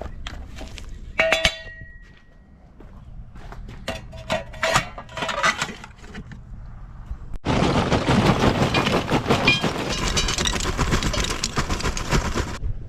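Hardwood lump charcoal going into a kamado grill: a ringing clank and a few clinks, then about five seconds of dense rattling clatter as the lumps are poured in, stopping abruptly near the end.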